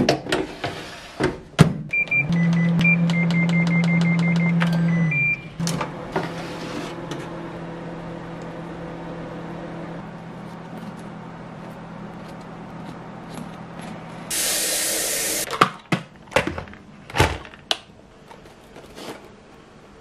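A baking tray is slid into a combination microwave oven and the door is shut, followed by a run of short beeps as the controls are set and the oven starting with a steady hum. Near the end, a short burst of hiss and then metal tongs clinking against baked buns and a wicker basket.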